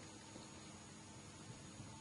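Near silence: a faint steady hiss with a thin high-pitched whine.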